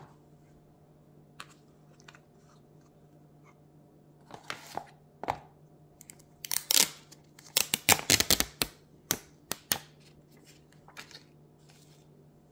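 Cardboard phone box and its inner tray being handled as the phone is taken out: scattered taps, scrapes and rustles, busiest and loudest in the middle stretch.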